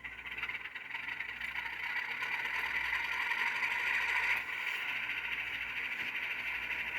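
An HO scale Rapido RSC-14 model locomotive's DCC sound decoder plays its diesel engine startup sequence through the model's small speaker, a recording of an ALCO 251-type prime mover. The engine sound builds up over the first few seconds, drops back slightly about four and a half seconds in, and settles into a steady idle. It sounds thin and tinny, with almost no low end.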